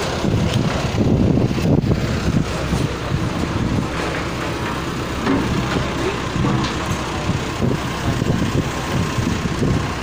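Diesel engine of a backhoe loader running, its level rising and falling unevenly.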